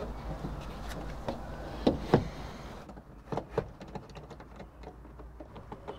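Hand work on a car's sunroof parts: a few sharp knocks, two of them close together about two seconds in and two more a second later, then fainter clicks and taps.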